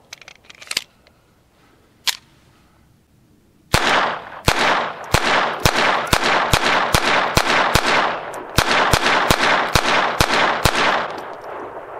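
Taurus TX22 semi-automatic pistol firing .22 LR rimfire rounds in quick succession, about two to three shots a second, each shot echoing. The string starts a little under four seconds in, after a few light handling clicks.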